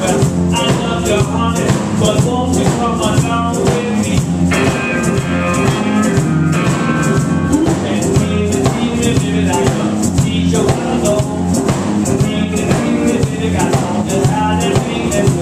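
Live blues-rock band playing: electric guitars and a drum kit keeping a steady beat, with a man singing over them.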